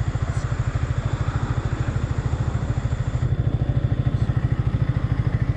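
Yamaha R15's single-cylinder engine idling with an even, rapid pulsing beat and no revving.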